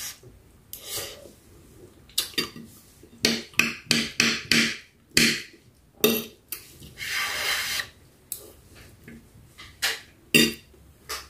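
Metal spoon clinking and scraping against a ceramic plate while scooping rice: a run of short knocks, with one longer scrape about seven seconds in.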